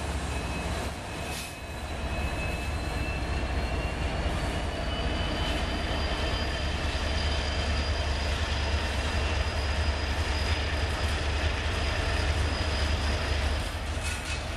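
Freight train passing close by: mid-train Union Pacific diesel-electric locomotives rumbling past, then double-stack container cars rolling on the rails. A thin high whine, typical of wheel squeal, runs over the rumble, rising slightly in pitch and fading near the end.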